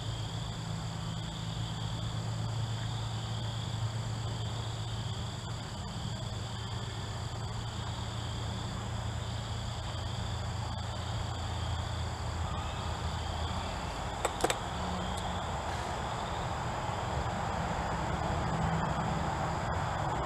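Steady background of a low hum and a high, wavering whine, with one short sharp click about fourteen seconds in; the soldering itself makes no clear sound.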